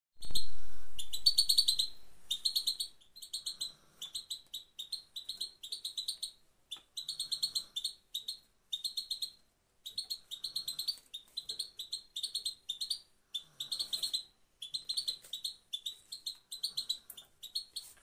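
Female European goldfinch giving its 'pet-pet' call, short bursts of a few rapid high notes repeated about once or twice a second; a recording used to bring a male goldfinch into breeding condition. A loud low thump at the very start fades over about two seconds.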